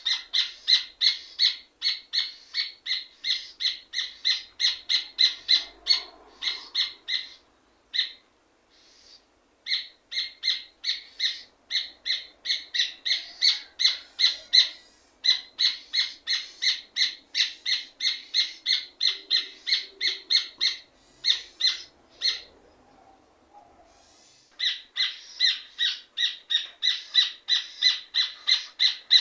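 Rufous hornero (red ovenbird) singing: long runs of loud, rapidly repeated ringing notes, about three a second, broken by a few short pauses.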